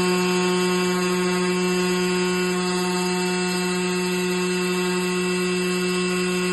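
Industrial glass washing machine running: a steady, even machine hum with several overtones over a hiss of water spraying and running off the glass sheet.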